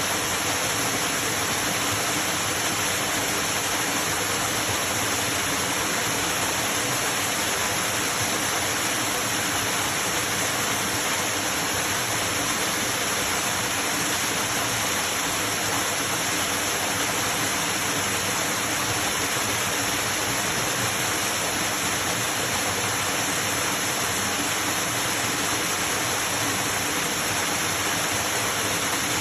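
Creek waterfall: water pouring and splashing in a steady, unbroken rush.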